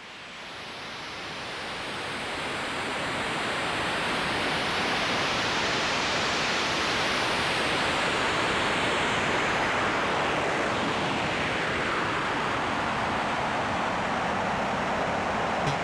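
AE Modular synthesizer drone of noise run through a phaser: a rushing wash of noise that swells in over the first few seconds, then holds steady, with the phaser sweep slowly rising and falling through it.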